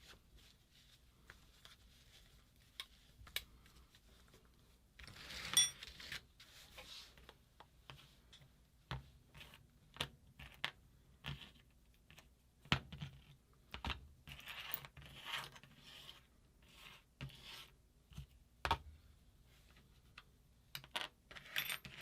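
Small metal parts clicking and clinking at irregular intervals as a paintball marker's ram is taken apart by hand, with one brief ringing metal clink about five and a half seconds in.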